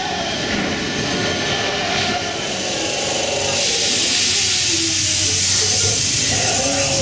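Dark-ride interior sound: a ride soundtrack with faint wavering tones, then a loud steady hiss of air or steam that starts suddenly about halfway through, over a low steady hum.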